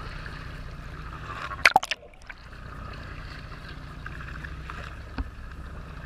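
Sea water sloshing and lapping around a camera held at the surface, over a steady low rumble, with one sharp, loud splash about a second and a half in as the camera dips through a wave.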